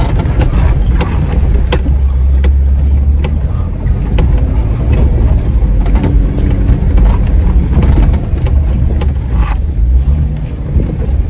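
Jeep Wrangler JK's engine pulling under load as it climbs a steep dirt trail, heard from inside the cab as a steady low drone. Scattered knocks and rattles come through over it from the rough ground.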